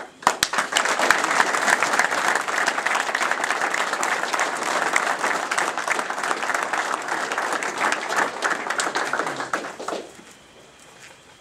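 A group of people clapping in applause, starting right away and stopping about ten seconds in.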